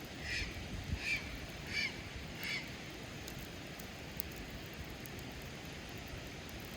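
A bird calling four times in quick, even succession, each call short and high-pitched, over a steady low rumble of wind or background noise.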